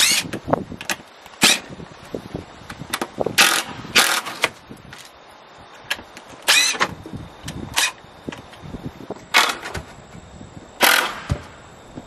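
Cordless drill-driver run in reverse in short bursts, backing screws out of boards, about ten quick spurts spread unevenly through the stretch.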